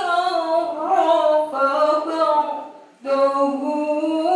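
A woman reciting the Qur'an in the melodic chanted style (qiroah), holding long notes that glide up and down, with one breath break about three seconds in. Her voice comes through a microphone.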